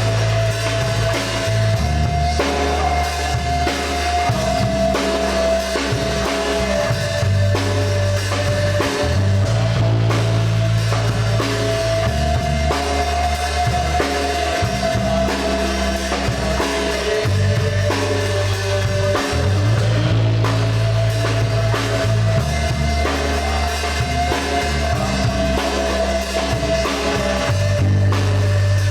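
A live band playing an instrumental passage: drum kit with kick and snare, a bass line that moves to a new note every couple of seconds, and a long held melody line above it.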